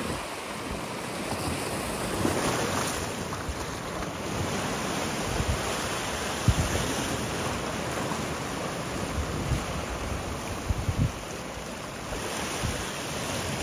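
Sea surf washing over low rocks and choppy water, a steady rush, with wind buffeting the microphone in a few short low thumps.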